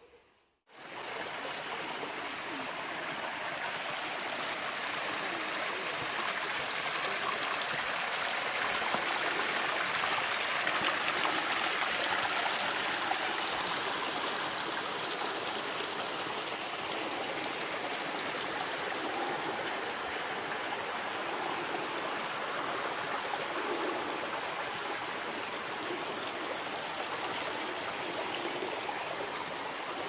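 Steady rushing of a forest stream, cutting in abruptly about half a second in, swelling a little and then easing slightly.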